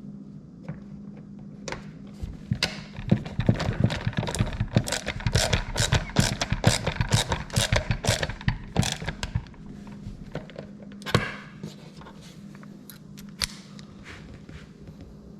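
Hard parts of a wall charger being handled and fitted together: a dense run of clicks and knocks for about seven seconds, then a single sharper knock, over a steady low hum.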